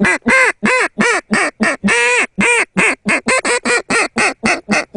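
Duck call blown by mouth, giving a fast string of quacks at about four or five a second, with a couple of longer drawn-out quacks about two seconds in. It is the calling used to bring in a flock that is still out at a distance.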